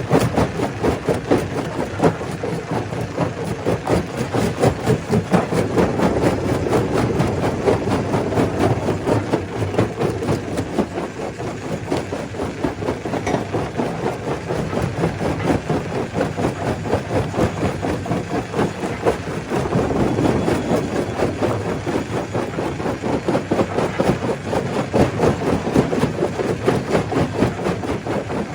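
Stone crusher running: a continuous, dense clatter of rapid knocks that barely varies in level.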